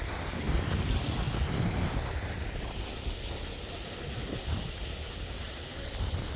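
Wind buffeting a phone's microphone: an uneven low rumble that rises and falls in gusts, over a steady hiss.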